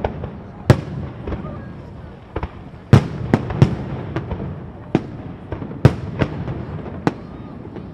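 Aerial fireworks shells bursting overhead in a rapid, irregular run of sharp bangs, about a dozen in eight seconds. The loudest come about a second in, three seconds in and near six seconds.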